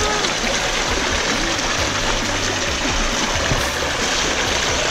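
Small stream of water running down a narrow rock channel between boulders, a steady rush and trickle.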